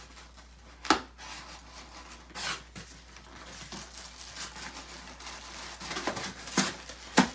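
Cardboard gift box and packaging being ripped open by hand: rustling and tearing, with several sharp snaps. The loudest snaps come about a second in and near the end.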